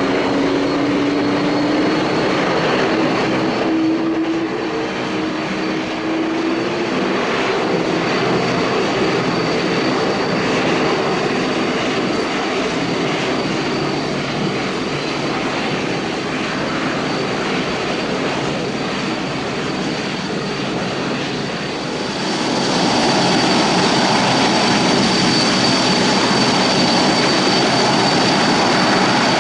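Jet airliner engines at an airport: the steady noise of a departing jet, with a hum that rises slightly in pitch early on. About 22 seconds in the sound switches abruptly to a louder jet on landing approach, with a steady high-pitched whine over the engine noise.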